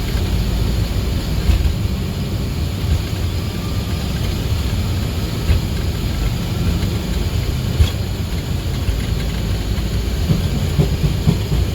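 Boeing 737 accelerating down the runway on its takeoff roll, heard from the flight deck: a steady, loud low rumble of the engines at takeoff thrust and the wheels on the runway, with a few short bumps and jolts along the way.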